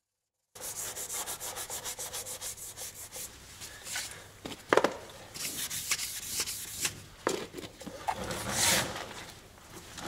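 Hand sanding of a car body panel with P240 abrasive paper on a hand pad, no dust extraction. It starts abruptly about half a second in with quick back-and-forth strokes, about five a second, then goes on in slower, uneven strokes with a sharp knock about five seconds in. This is flatting the surface so that the guide coat shows up the unevenness.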